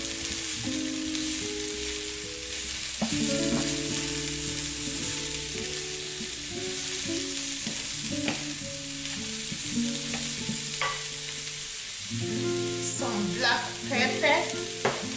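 Sliced button mushrooms and onion sizzling in hot oil in a frying pan as they are stirred with a wooden spoon. The spoon knocks and scrapes against the pan now and then, most busily near the end.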